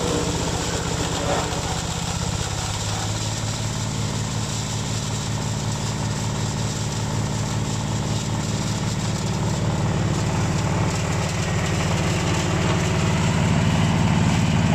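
Wheeled branch shredder (wood chipper) running steadily under load, chipping branches with a steady low hum from its drive and the rush of chips being thrown out. It gets a little louder toward the end.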